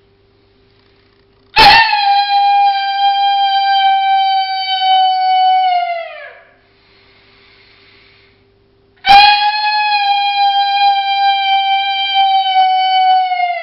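Two long coyote pup howls blown on a two-reed diaphragm howler through a cow horn. Each starts abruptly, holds a steady high pitch for about four seconds, then drops in pitch as it trails off; the second begins about halfway through.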